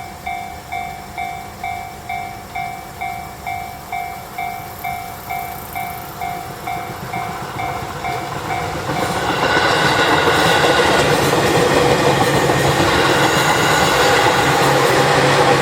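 Japanese level-crossing warning bell ringing in a steady, quick electronic ding at about two and a half strikes a second. About nine seconds in the bell stops and a train passes close by, its loud running noise taking over.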